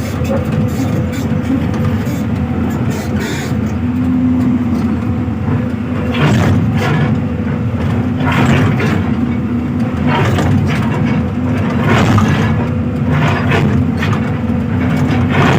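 Hyundai 215 excavator's diesel engine running steadily, with short sharp knocks every second or so.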